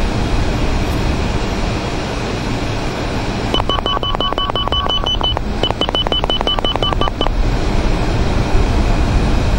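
Steady jet engine and airflow noise of a MiG-29UB on landing approach. A cockpit signal sounds a run of rapid high beeps, about seven a second, starting about three and a half seconds in and lasting nearly four seconds with a short break in the middle.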